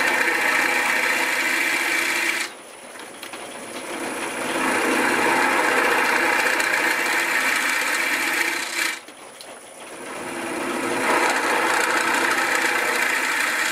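Wood lathe spinning a bowl blank while a hand-held turning chisel cuts into the inside, hollowing the bowl: a loud, rasping cut. Twice, about two and a half seconds in and again about nine seconds in, the tool comes off the wood and only the quieter lathe runs, before the cut builds up gradually again.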